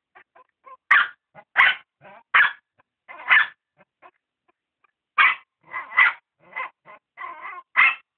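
A dog barking in short, sharp barks, several in quick succession, with a brief pause about four seconds in.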